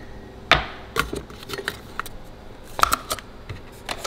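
A string of light clicks and knocks as a ceramic canister lid is lifted and a single-serve pod coffee maker's handle is raised over a loaded coffee pod. The sharpest knock comes about half a second in, with a cluster of smaller clicks near three seconds.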